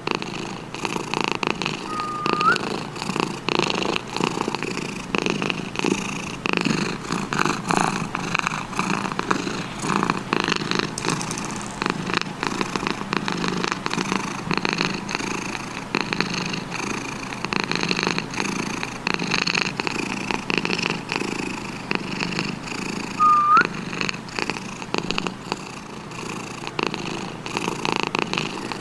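Domestic cat purring continuously, a rough, rapidly pulsing rumble. Two brief thin rising chirps sound over it, some twenty seconds apart.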